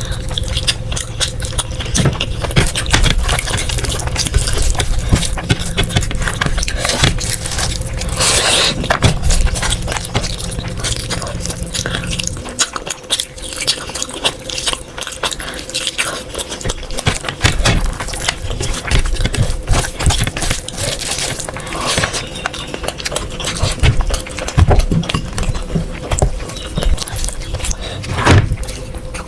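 Close-miked eating sounds: food being scraped and handled on a plate, with irregular clicks and chewing, over a steady hum. A low rumble underneath stops about twelve seconds in.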